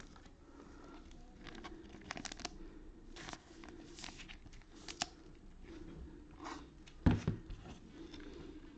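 Trading cards and their packaging handled on a table: scattered rustles, crinkles and light taps, with a louder knock about seven seconds in.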